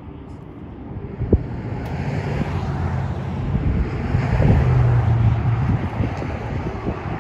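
Wind buffeting the microphone, building from about a second in and easing near the end. Under it runs a low steady drone, with one sharp knock about a second in.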